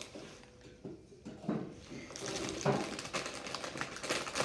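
Foil snack-chip bag of Flamin' Hot Cheetos being handled and pulled open, crinkling and crackling, busier from about halfway through.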